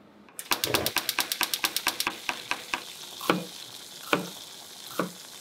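Hot frying oil sizzling with a steady hiss. A fast run of sharp crackles slows over a couple of seconds, then a few louder, separate pops follow.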